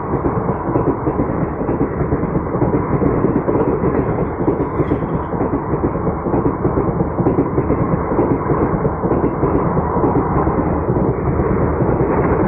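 Loud, steady rumble of an Indian express train's passenger coaches running past at speed on the next track: steel wheels on rail and rushing air.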